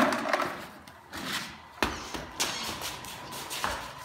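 Hurried handling of cooking gear on a concrete floor: rustling and scraping, then three sharp knocks and clatters spaced irregularly through the last half.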